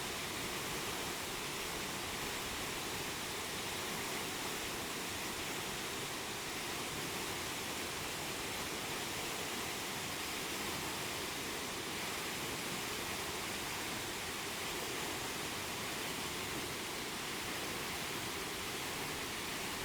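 Steady rushing of a waterfall, an even wash of falling water that does not change.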